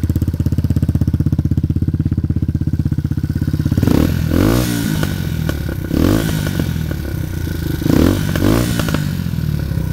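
Sachs MadAss 125's single-cylinder four-stroke engine running through an aftermarket stainless steel exhaust with the catalytic converter removed: a steady idle, then revved up and down in a few short blips from about four seconds in, settling back to idle near the end.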